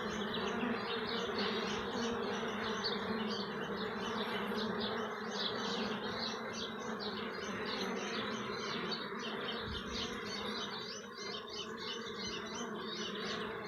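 Loud, steady buzzing of a dense swarm of honeybees at a hive entrance, many wings humming together, with the agitated activity of a colony being robbed and bees fighting.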